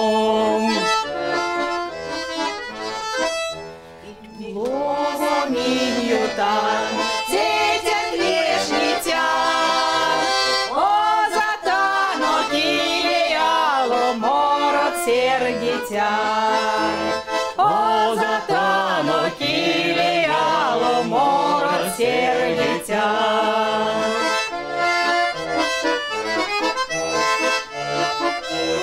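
Tula bayan (Russian button accordion) playing an Erzya folk song, with women's voices singing over it. The music thins briefly about four seconds in, then the accordion and voices continue together.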